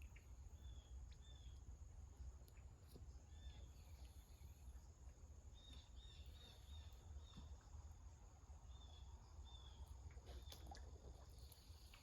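Near-silent outdoor ambience: a bird gives short high chirps, singly and in quick little runs, over a steady low rumble.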